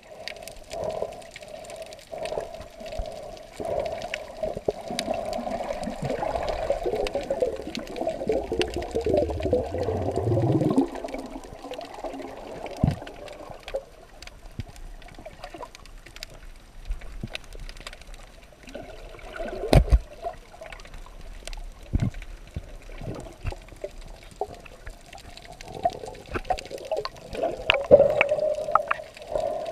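Water heard from underwater: muffled sloshing and gurgling with scattered sharp clicks, and a deep gurgle that sweeps downward about nine to eleven seconds in.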